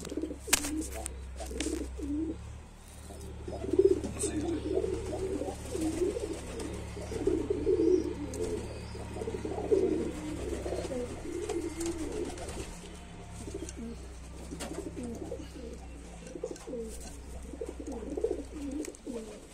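Domestic pigeons cooing over and over, low and rolling, with a few sharp clicks in the first few seconds.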